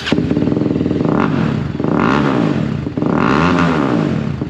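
TVS Apache RR310's single-cylinder engine running through an Akrapovic exhaust with the dB killer removed, idling and revved twice, the pitch rising and falling each time. Very loud.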